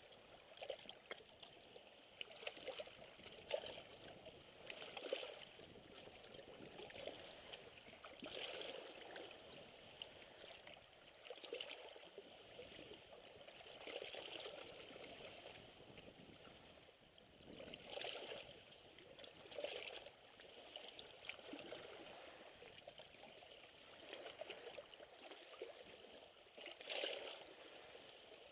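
Small waves lapping against shoreline rocks: a faint gurgling wash that swells and ebbs every second or two, with small sharp splashes.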